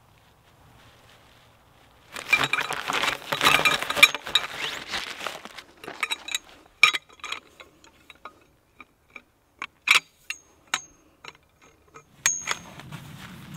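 Segments of a sectioned tent pole being handled and fitted together. First comes a few seconds of rustling and rattling as the folded bundle is handled. Then a series of separate sharp clicks and clinks as the sections seat into each other, one ringing briefly near the end.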